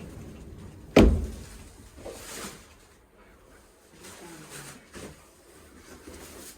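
A door being shut with a single sharp thump about a second in, followed by fainter scattered handling noises.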